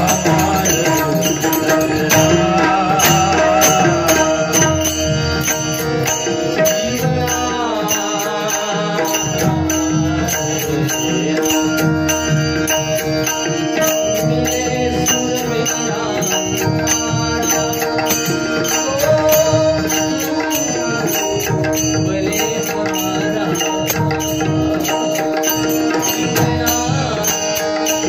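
Marathi devotional bhajan sung live by male voices over a steady drone, with a hand drum and small cymbals keeping an even beat.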